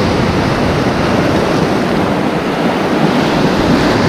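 Surf breaking and washing in foam over a rocky reef shore: a steady, loud rush of waves.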